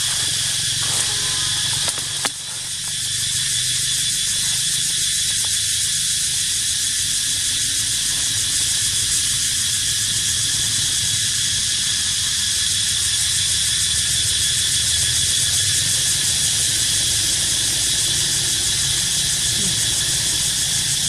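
Steady outdoor insect drone, a continuous high-pitched buzzing chorus, over a low rumble, with one brief knock about two seconds in.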